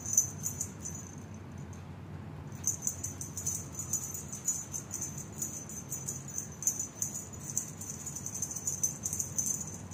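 Jingling of a feather wand cat toy being shaken and batted at by a kitten: rapid, irregular metallic jingles, brief at the start and then continuous from about two and a half seconds in.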